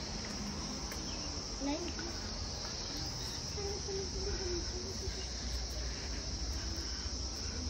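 Steady high-pitched insect chorus trilling without a break, with faint voices in the background.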